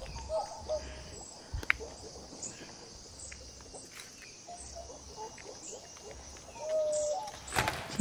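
Outdoor forest ambience: scattered short bird calls over a steady high hiss, with soft footsteps. A louder rustling knock comes near the end.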